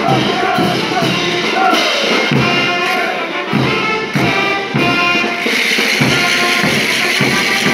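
Street brass band playing a morenada: trumpets and low brass over a steady, heavy drum beat, with a rattling hiss joining in about two-thirds of the way through.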